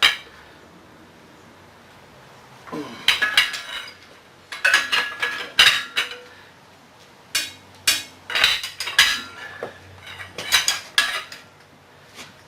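Irregular clusters of metal-on-metal clanks and clinks, each with a brief ring, from steel hand tools and parts of a jackshaft knocking together. About eight groups come at uneven intervals with short pauses between them.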